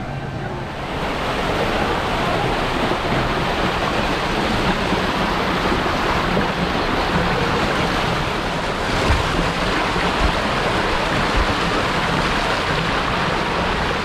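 Water gushing steadily through the start tub of a fiberglass water slide into its enclosed tube, heard up close, starting about a second in. A few dull bumps come past the middle.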